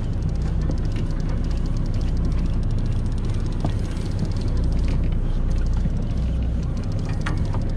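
Steady low rumble of a charter fishing boat's engine running, with a faint fast ticking above it.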